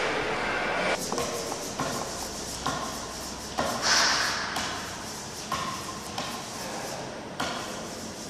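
Light knocks and scrapes of hand work at a table, coming roughly once a second, with a louder hissing scrape about four seconds in.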